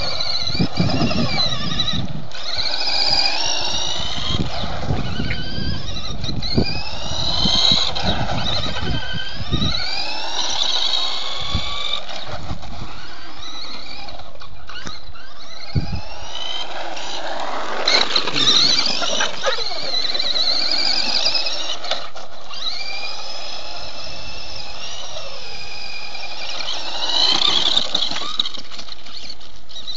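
Nikko radio-controlled toy car's electric motor whining, its pitch rising and falling again and again as the car speeds up and slows down. Low rumbling and thumps come through during the first dozen seconds.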